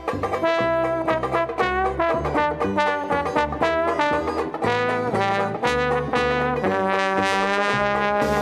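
Background music: an instrumental passage of a jazz song, led by brass, over a steady beat.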